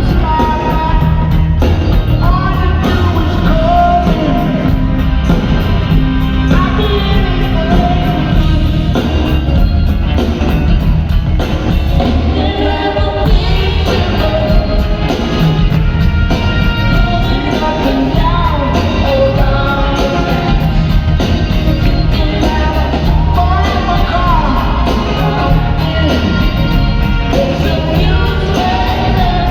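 Live rock band playing with a male lead vocal, over a pulsing bass line and a steady beat.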